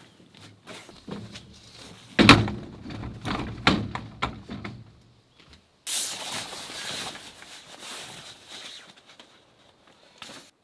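Camping gear being handled: a run of knocks and thuds, the loudest about two seconds in, then about two seconds of rustling hiss.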